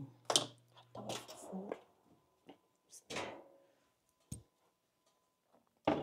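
Kitchen handling sounds: several sharp knocks and clicks of dishes and utensils, with two short scraping rustles, and a low hum that stops about a second and a half in.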